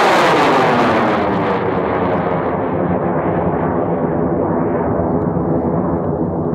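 Roar of a large high-power rocket's experimental O6000 motor burning Wimpy Red propellant as the rocket climbs away after liftoff. A steady, loud rushing roar carries a phasing sweep that falls in pitch, and its hiss loses the top end about a second and a half in.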